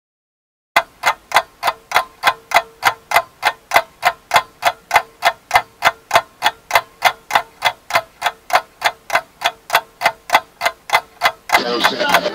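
Steady clock-like ticking, about three ticks a second, starting after a moment of silence. Near the end a busier clattering layer comes in over it.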